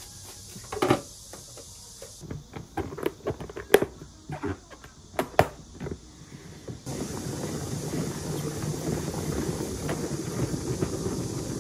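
Plastic salad spinner: clicks and knocks as the basket of washed lettuce is set into the bowl and the lid fitted, then about seven seconds in a steady whirring rattle as the basket spins the lettuce dry.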